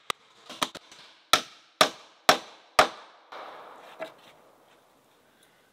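Hammer striking the timber roof frame: a couple of lighter taps, then four hard blows about half a second apart, then one fainter knock about four seconds in.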